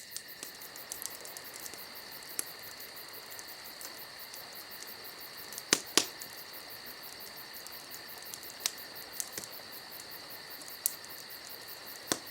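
Crickets chirping in a steady high-pitched trill, with a scattering of sharp clicks, the loudest a pair about six seconds in.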